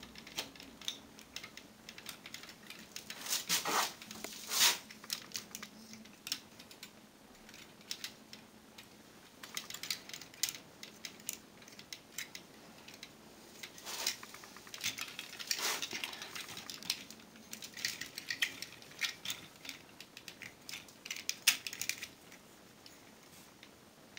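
Plastic parts of a Transformers Combiner Wars Defensor action figure clicking and rattling as it is handled and posed, in irregular bursts of sharp clicks.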